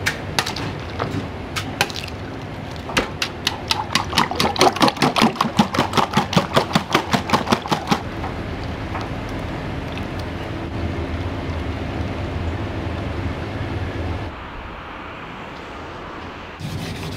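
Metal ladle striking an iron wok in a fast, even rhythm, about four or five strikes a second, as fried rice is tossed and stirred over high heat. Then a steady rushing noise of the wok burner and frying.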